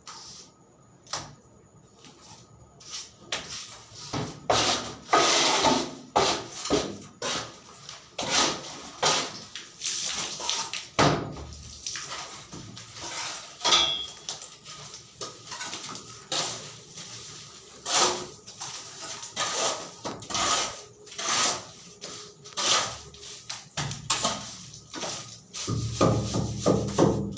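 Irregular knocks, scrapes and clatter of manual work with hand tools, some strokes sharp and loud, with a low steady rumble added near the end.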